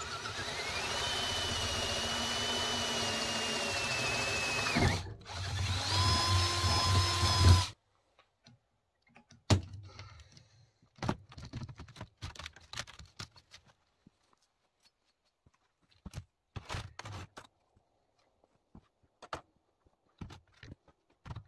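Cordless drill boring through a flat steel bar: the motor whine climbs and holds for about five seconds, stops briefly, then runs again for about two seconds. After that come scattered clicks and knocks of the metal bar and a locking clamp being handled.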